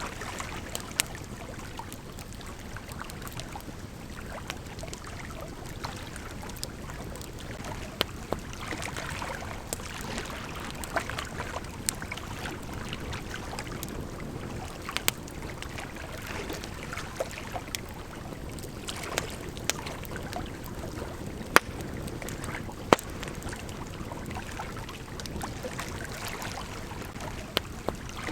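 Campfire crackling, with frequent sharp pops and a couple of louder snaps, over the steady rush of a gently flowing river.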